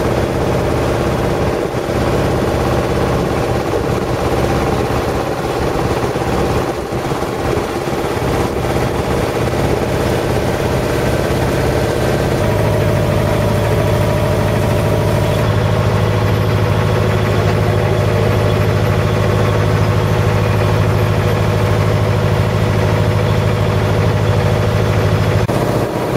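A boat's engine running steadily, its low hum growing stronger about halfway through.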